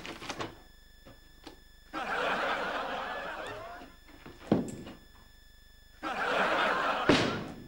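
Studio audience laughter in two bursts, one starting about two seconds in and fading, another starting about six seconds in. A sharp thump comes between them, and another near the end.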